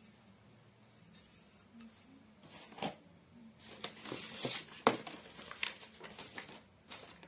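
Objects being handled: rustling with scattered clicks and knocks, one sharp knock about five seconds in the loudest. No motor is running.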